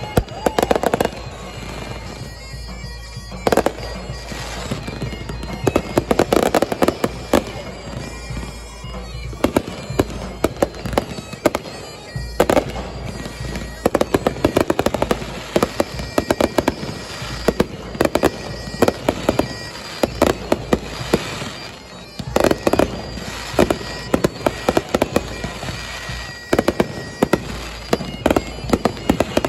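Fireworks display: volleys of sharp bangs and crackles coming in clusters, with a few quieter gaps between them.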